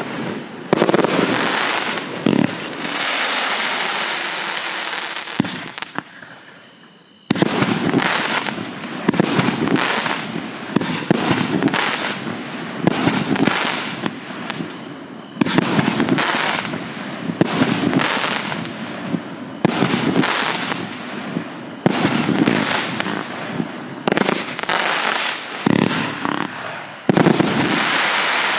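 A 212-shot consumer fireworks cake firing in rapid volleys of launch thumps and aerial bursts. A few seconds in, a steady dense hiss holds for about three seconds, there is a brief lull around six seconds, then quick-fire shots resume.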